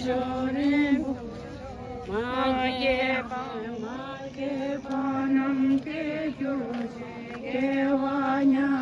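Tibetan prayer chanted in long, held notes that change pitch only now and then.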